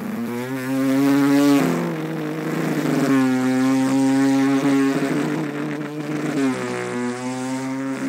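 A man's vocal imitation of a sports car engine, made through cupped hands: a held, buzzing engine-like note that steps to a new pitch a few times.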